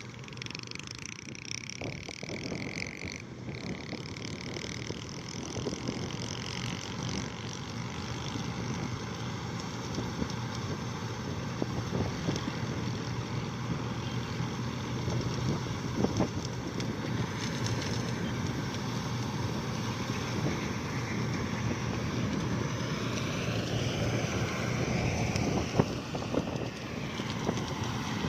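An engine running steadily with a low hum, slowly growing louder, amid wind and field noise.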